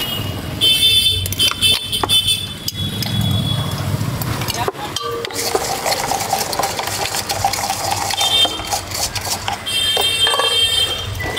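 A spoon stirring chaat masala in a small bowl: rapid scraping and clinking, in a quick bout about a second in and again near the end.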